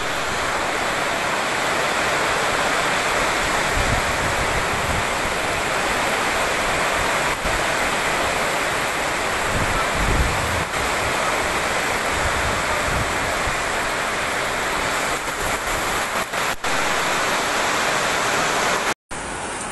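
Torrential rain pouring down onto pavement and parked cars, a dense, steady hiss with a few low rumbles now and then. It cuts out briefly near the end.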